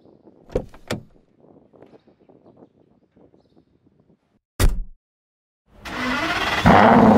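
Car door clicks open, then shuts with a heavy thud about four and a half seconds in. Near the end the Aston Martin Vanquish's V12 starts, rising quickly into a loud steady run.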